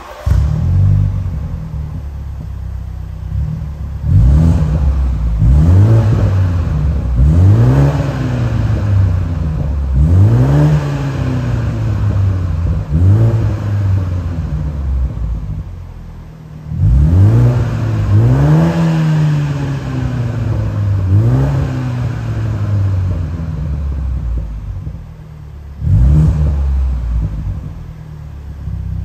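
BMW Z4 20i G29's turbocharged 2.0-litre four-cylinder engine breathing through an AC Schnitzer valved stainless sport exhaust, started with a loud flare and then revved in short blips about nine times, each rising and falling back to idle.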